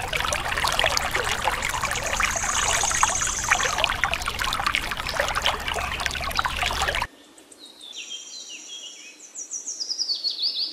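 A thin stream of water from a mini pump's tube pouring and splashing into a shallow foil tray of water, cutting off suddenly about seven seconds in. Birds then chirp, with short falling high calls repeated.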